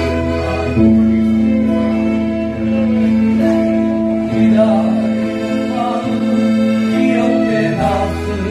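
Live acoustic performance of a Korean ballad: two men singing a duet over strummed acoustic guitars, with accordion holding long chords and a violin.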